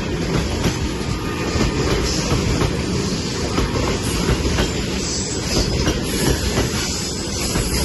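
Freight train of tank cars rolling past at speed: a steady heavy rumble with quick, irregular wheel clacks and a hiss over the top.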